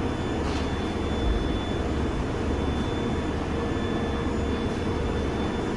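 London Underground Bakerloo line 1972 Stock train running through the tunnel: a steady rumble with a thin, constant high whine and a lower hum.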